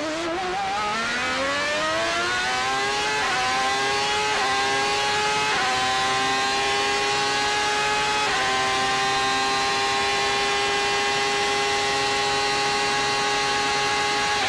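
Ferrari Formula 1 V12 engine heard from the onboard camera at full throttle, climbing in pitch through the gears. Four quick upshifts come about 3, 4.5, 5.5 and 8 seconds in, and after the last one the engine holds a steady high scream at top speed.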